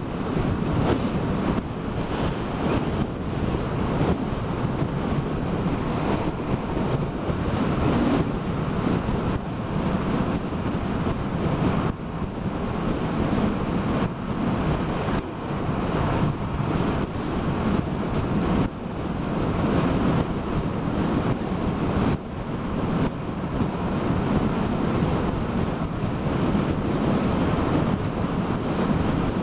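Wind rushing and buffeting over the microphone of a Yamaha XSR700 motorcycle cruising at dual-carriageway speed, a steady loud rush that swells and dips, with road noise beneath.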